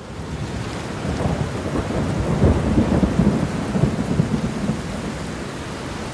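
Steady rain with a low rolling rumble of thunder that fades in and swells about two to three seconds in.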